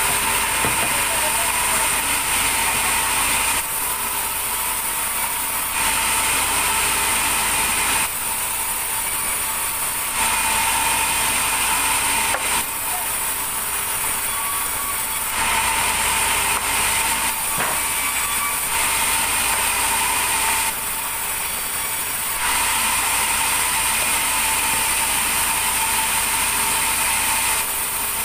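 Continuous machine noise with a steady high hum, switching back and forth between two slightly different states every few seconds.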